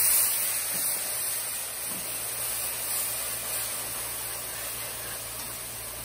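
Water hitting hot curry paste in a frying pan, hissing and sizzling in a burst of steam, loudest at first and dying down steadily as the water heats up.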